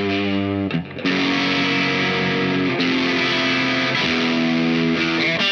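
Fender Aerodyne Special Telecaster played through a Dazatronyx RAD distortion pedal, a RAT-style circuit, ringing out sustained distorted chords. There is a short break about a second in, then the next chord, with a bend wavering in near the end.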